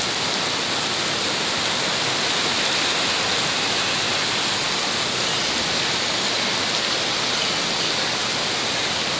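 Heavy downpour: a steady, even hiss of rain falling on a flooded street.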